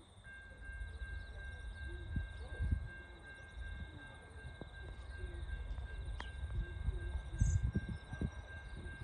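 Level crossing warning bell starting up just after the start and then sounding continuously as a steady high chime, over low rumbling and occasional thumps.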